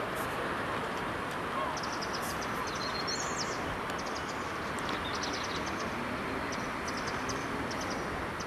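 Steady outdoor background noise, with small birds giving quick, high, repeated trills throughout.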